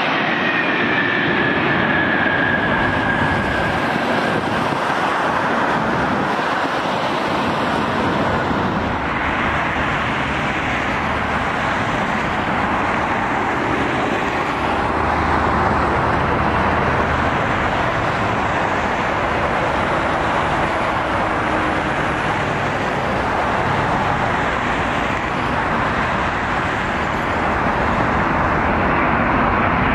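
Steady jet engine noise of airliners. A widebody jet rolls out on the runway just after touchdown, with a falling whine over the first few seconds, then a Boeing 787-9 runs on final approach.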